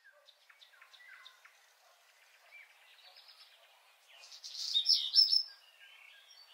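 Birds chirping and singing, faint and scattered, with a louder run of high chirps and trills about four to five seconds in.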